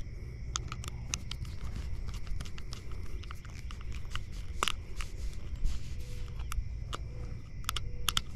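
Irregular small clicks and scrapes of a screwdriver tightening the cord clamp screws on a replacement extension-cord plug end.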